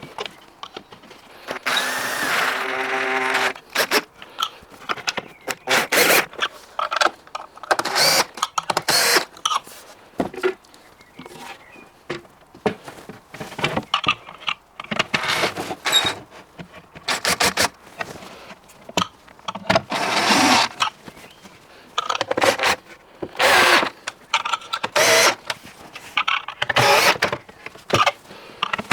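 A cordless drill-driver whines for a couple of seconds, about two seconds in. It is followed by a series of knocks, clicks and short bursts as wooden cabinet panels are handled and fitted together with their fittings.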